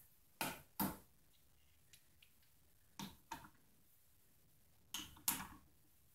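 Small cast aluminium ingots set down one at a time on a digital kitchen scale and stacked on each other. Each placement gives a pair of sharp clacks, three placements about two seconds apart.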